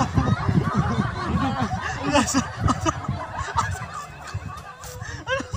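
Young men laughing, dying down near the end.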